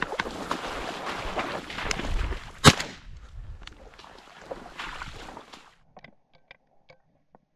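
A single 28-gauge shotgun shot about two and a half seconds in, sharp and far louder than anything else, with a brief ring after it. Before it there is wind on the microphone and rustling movement.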